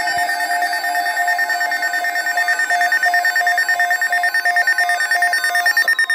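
Loud electronic alert tones, a fast steady warbling pattern at a few fixed pitches, with a falling pitch glide beginning near the end.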